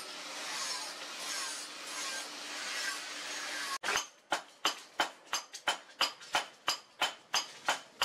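A forge fire gives a steady rushing hiss with a faint low hum. It cuts off about four seconds in, and hand-hammer blows follow on the red-hot brake-disc steel blank on the anvil, sharp and evenly paced at about three a second, each with a brief ring.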